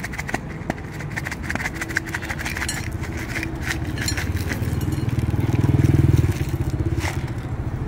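A motor vehicle engine running close by, a low pulsing rumble that swells to its loudest about six seconds in and then eases off. A few light clicks sound as beans and seeds are dropped onto the plate.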